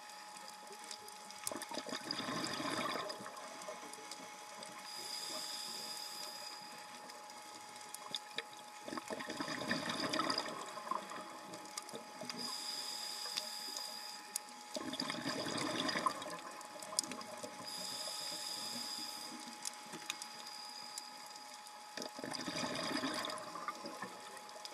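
A scuba diver breathing through a regulator, about four breaths: each a short high hiss of the inhale followed by a rush of exhaled bubbles. Scattered sharp clicks and a faint steady tone sit under the breathing.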